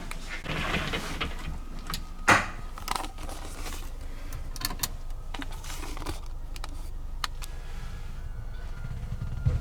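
Steady low hum of a ship's engines, with scattered clicks and knocks of things being handled; one sharp knock about two seconds in is the loudest sound.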